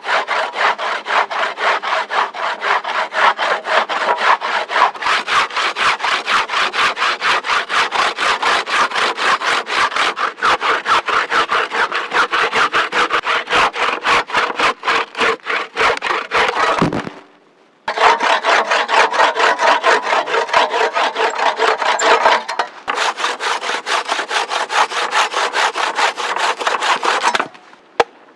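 Coarse-toothed hand saw cutting through a log with fast, even back-and-forth strokes. It stops briefly about two-thirds of the way through, then resumes. A single sharp knock follows near the end.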